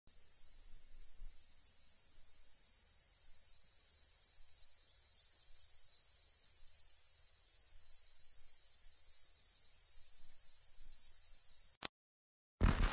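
Chorus of crickets: a steady high trill with a faint regular chirp pulsing under it, slowly growing louder, then cut off abruptly. After a short silence, loud beats start right at the end.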